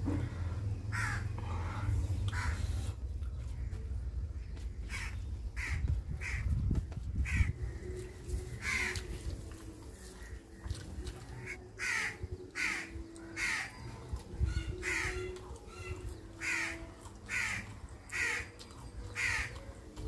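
Crows cawing repeatedly, short calls coming about once a second and now and then in quick pairs, with a low rumble underneath through the first several seconds.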